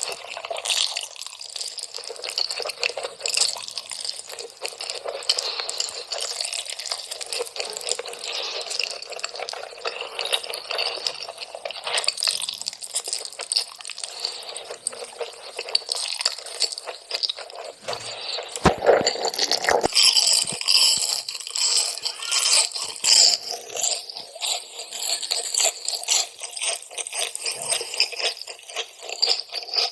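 Close-miked food sounds: wet squishing and crunching with dense small clicks and crackles, busiest and loudest about two-thirds of the way through, with a few dull knocks there.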